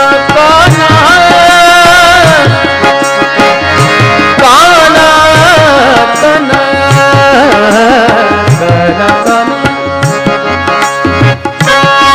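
Bhajan music between sung lines: regular hand-drum strokes under a melody line whose pitch wavers and slides, over sustained drone notes.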